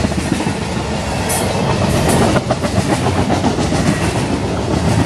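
CSX freight train's cars rolling past: a steady rumble of steel wheels on rail, with a few sharp clicks about a second in and again about two and a half seconds in.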